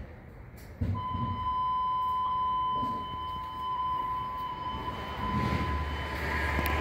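A steady electronic buzzer tone at one pitch, starting sharply about a second in and holding for nearly six seconds. A low rumble joins near the end.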